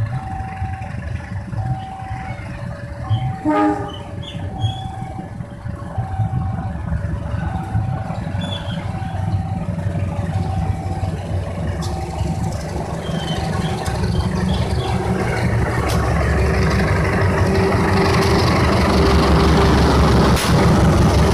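Railway level-crossing warning alarm alternating between two tones, fading out after about twelve seconds, with a brief horn blast a few seconds in. A train approaches with a low rumble that builds to the loudest part near the end.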